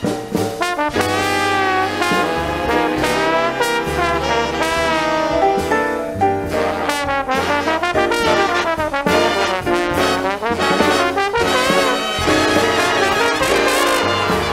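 Slide trombone playing an improvised jazz solo over a swing big band, its melody line full of notes that waver and bend. Low bass notes step along beneath it, with drum and cymbal strikes throughout.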